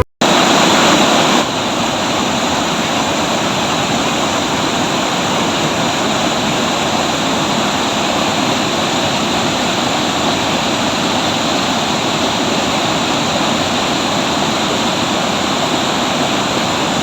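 Waterfall rushing: a steady, even noise of falling water, a little louder for the first second and a half, then unchanging.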